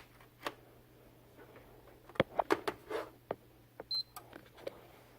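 Light clicks and knocks from a PS4 controller and its micro USB cable being handled and plugged in, several in quick succession about two to three seconds in. One short high beep comes about four seconds in, over a faint steady low hum.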